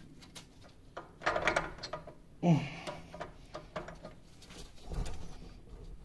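Hand-worked metal parts in a lathe headstock: short clanks and scraping as a gear and bearing assembly is shifted and pried on its shaft, with a dull thump about five seconds in. The bearing is stuck and won't come off.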